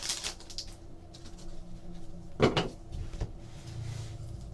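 A single sharp knock about halfway through, amid faint handling noise while trading-card packs are being opened.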